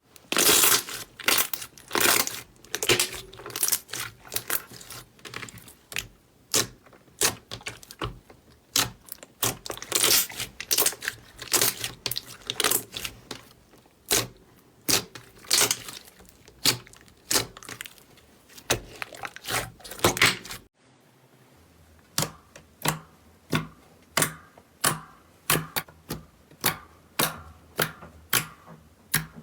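Slime being squeezed and poked by hand, giving a quick run of sharp clicks and pops. About twenty seconds in, the sound cuts to a steadier rhythm of pokes, somewhat under two a second, over a faint low hum.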